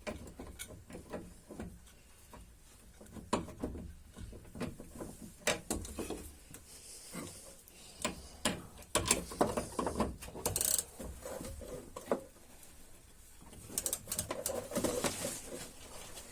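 Irregular metallic clicks and clinks of a wrench working on the nuts of a stabilizer link during final tightening.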